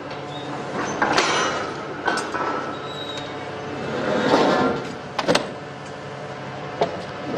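Metal clanks and scraping squeals as steel drilling pipes and gear are handled at a borewell-drilling truck, with sharp knocks about a second in, twice around five seconds and once near seven seconds.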